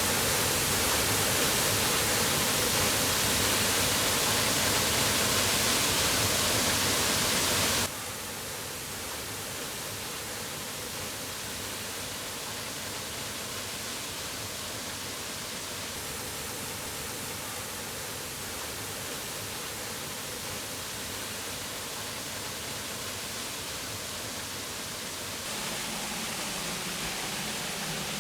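Waterfall: a steady rush of falling water that drops abruptly in level about eight seconds in and grows a little louder again near the end.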